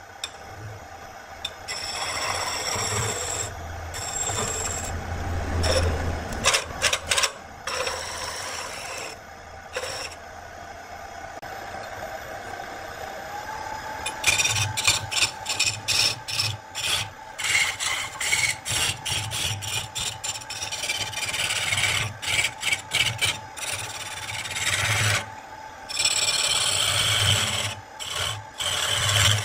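Wood lathe turning a wooden spindle while a hand-held turning chisel cuts it: a rasping scrape of the blade peeling shavings, in repeated strokes with short breaks, over a steady hum.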